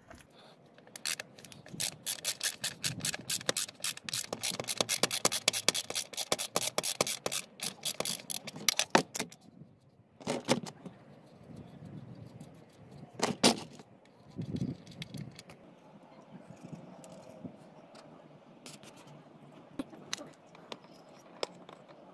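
Rapid metallic clicking and scraping as the sump drain plug of a VW Golf 1.9 TDI is undone, with two sharper knocks about ten and thirteen seconds in. Near the end a faint steady sound of engine oil draining from the sump.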